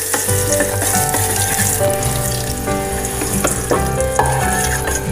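Background music with a stepping bass line and held notes begins a moment in, over a steady hiss of ghee heating and sizzling in a frying pan on a gas burner.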